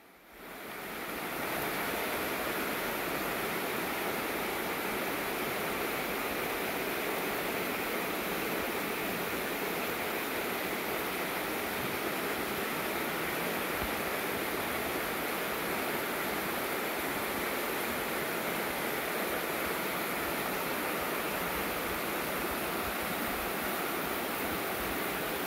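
Shallow river water rushing steadily over stones, fading in over the first second or so.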